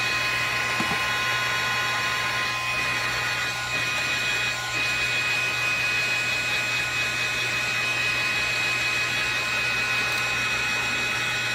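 Electric heat gun running steadily, a constant blowing hiss with a high whine, as it is swept around a glass jar to melt the top layer of soy candle wax.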